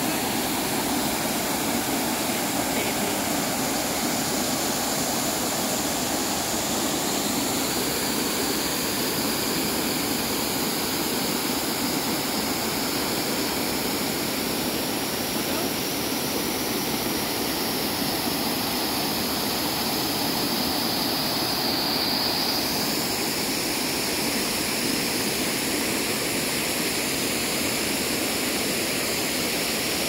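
Water of a small waterfall and swollen, muddy stream rushing over rocks: a steady, unbroken rush of noise at a constant level.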